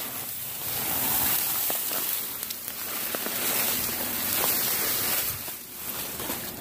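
Dry leaves and branches of dense brush rustling, with twigs crackling, as a hiker pushes through on foot; scattered footsteps and short snaps throughout.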